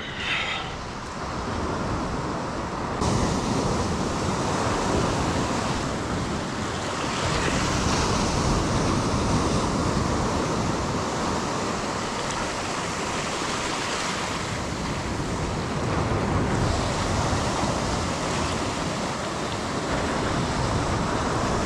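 Ocean surf breaking and washing around a kayak as it is paddled out through the whitewater: a steady rush of water that swells and eases, with wind on the microphone.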